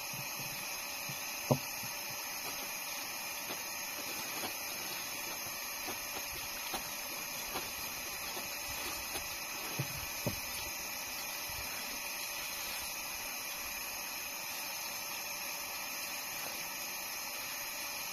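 Steady hiss with a few light knocks and taps, the sharpest about one and a half seconds in and two more close together a little past halfway.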